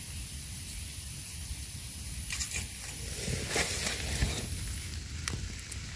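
A steady high-pitched hiss that cuts off about five seconds in. Under it are soft rustles and light scrapes from dry leaf litter and from mushrooms being handled and trimmed with a knife.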